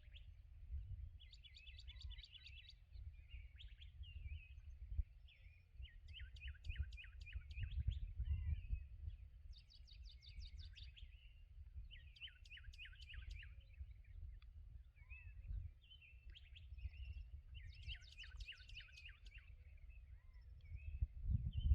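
A songbird singing repeatedly. Each song is a quick run of sharp, high notes, repeated every few seconds, with softer chirps in between, over a faint low rumble.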